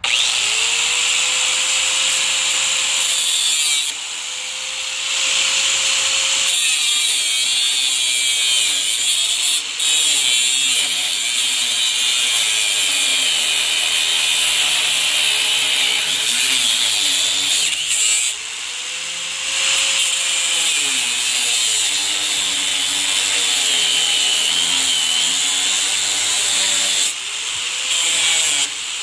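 Angle grinder with a cutoff disc cutting into the metal rear fork of a bike frame: a loud, steady grinding hiss. A few times, around 4, 18 and 27 seconds in, the disc eases off the metal and the motor's whine comes up briefly before the cut resumes.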